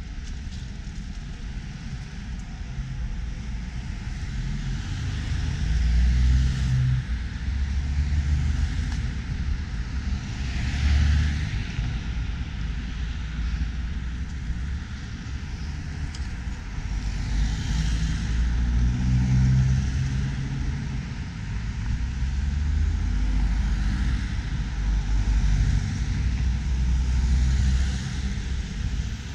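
Street traffic: several cars drive past one after another, their tyre and engine noise swelling and fading, over a constant heavy low rumble.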